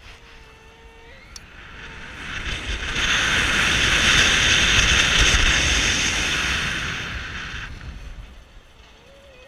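Wind rushing over the microphone of a rider's camera on a tall tower swing ride as the seat sweeps around on its chains, with a low buffeting rumble. It swells loud for about five seconds in the middle, then eases off.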